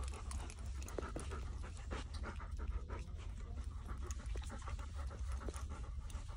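Golden retriever panting in quick repeated breaths over a steady low hum.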